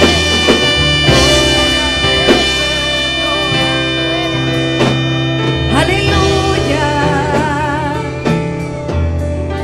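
Music soundtrack: a band accompaniment under a held melody line that wavers with vibrato.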